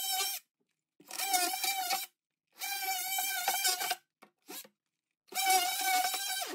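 Cordless Ryobi oscillating multi-tool running in bursts of about a second, stopping and starting, its blade cutting through drywall. Each burst is a steady high-pitched buzz.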